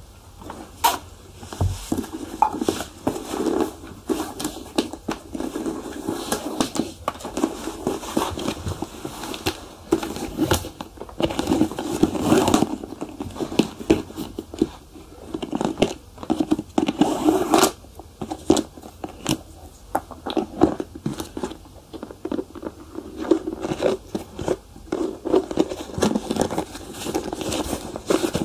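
Shoe polishing on leather: an irregular run of scratchy rubbing strokes with small crackles.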